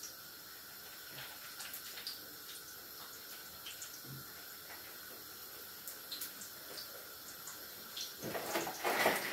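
Hot oil sizzling with small scattered crackles as squares of dough fry in it. The sizzle gets louder near the end.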